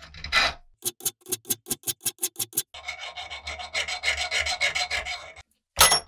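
Hand-abrading a workpiece by rubbing or filing. A quick run of short strokes at about six a second is followed by a few seconds of continuous rubbing and one last short scrape near the end.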